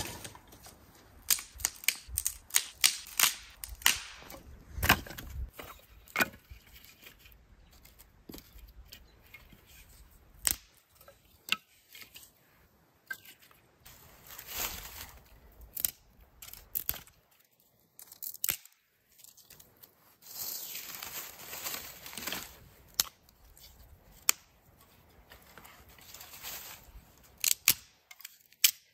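Dry sticks snapping sharply in a quick series as kindling is broken by hand, then scattered clicks of sticks being laid down and the rustle of dry leaves being handled.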